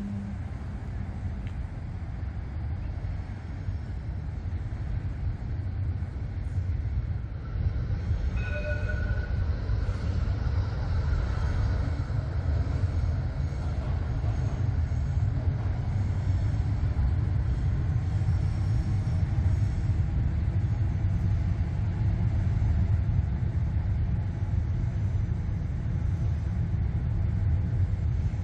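Electric suburban train running across a steel railway viaduct, a steady low rumble that grows louder about eight seconds in. A brief high note sounds around the same moment.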